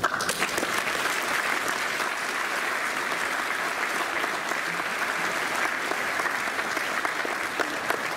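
A large audience applauding: dense, steady clapping that breaks out suddenly and keeps going.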